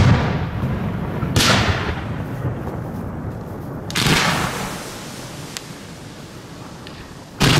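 Fireworks going off in a large display, heard from close to the firing site: three loud booms, about a second and a half in, about four seconds in and near the end, each dying away in a rumbling echo.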